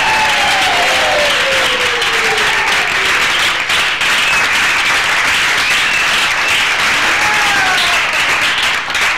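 A small roomful of people applauding steadily, with a couple of drawn-out voices calling out over the clapping, one near the start and one near the end.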